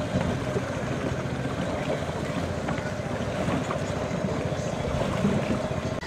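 Small boat motor running steadily, with fast low pulsing under a rough, even noise.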